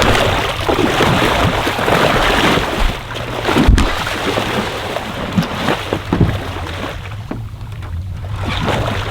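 Boat motor running on open water with a steady low hum, heavy wind noise on the microphone and water rushing past the hull; one sharp knock about four seconds in.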